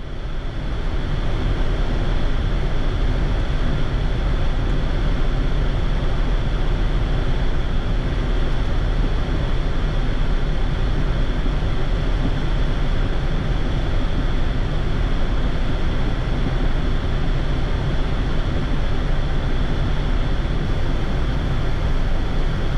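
Steady rush of airflow and cabin noise on a Boeing 787-8 flight deck in cruise at about 40,000 ft, fading in over the first second or so.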